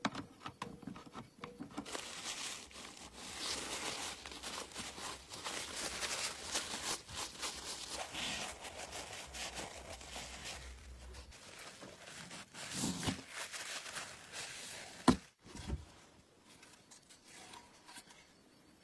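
Irregular rubbing and scraping strokes from hand work on a part, then a single sharp knock about fifteen seconds in.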